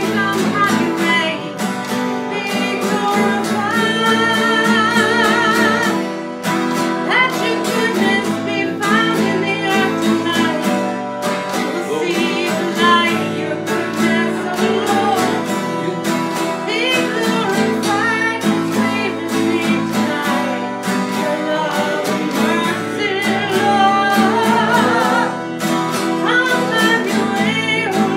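Two acoustic guitars strummed together while a woman sings a worship song, holding notes with vibrato.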